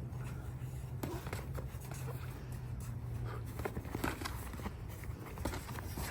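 Sparring in progress: scattered soft thumps and shuffles of footwork and punches over a steady low hum.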